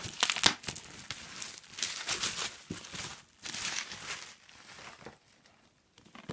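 Packaging crinkling, crumpling and tearing as a Blu-ray set is unwrapped by hand, in a run of crackly rustles that dies away about five seconds in, with one small click near the end.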